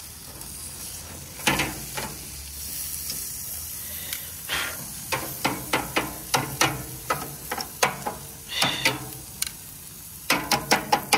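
Tomahawk steak sizzling with a steady hiss as it cooks, close to burning, over repeated sharp knocks and scrapes, several in quick runs through the middle and near the end.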